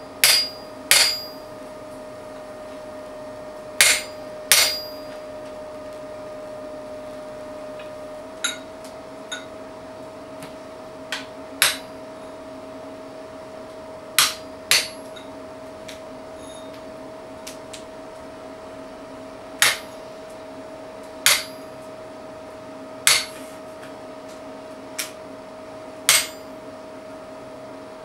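Hammer blows on a hand-held chisel set against hot steel on an anvil. The blows are sharp, ringing and irregular, some in quick pairs and a few lighter taps, with pauses between, over a steady hum.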